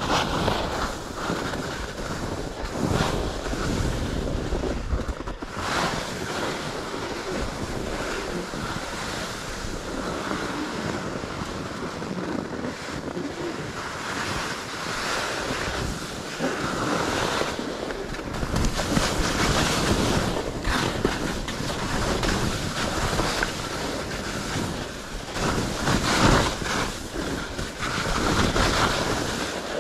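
Wind rushing over the helmet or chest camera's microphone while skis scrape and carve through chopped-up snow on a steep descent, the rush swelling in uneven surges through the turns.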